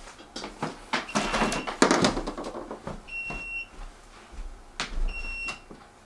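An electronic buzzer beeps three times, a short high steady tone about every two seconds, the middle beep the loudest. A clatter of small knocks and handling noise runs through the first two seconds.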